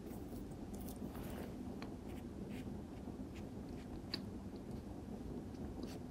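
Faint sounds of a watercolor brush working: light dabs and strokes of the bristles on paper and in the paint tin, with a few small scattered ticks over low room hiss.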